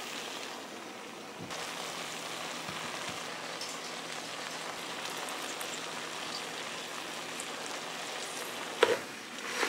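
Pot of pasta and chicken sizzling on a gas stove, a steady hiss, with a short knock near the end.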